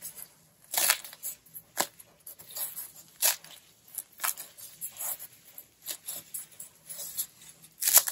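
Thin crust of a freshly baked sourdough shotis puri (Georgian flatbread) crunching and crackling as it is squeezed in the hands, in short irregular bursts about once a second.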